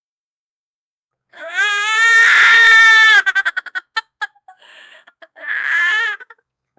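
Woman crying hysterically: after about a second of silence, a long high wail, then a run of quick gasping sobs, a quieter breathy sob, and a second, shorter wail near the end.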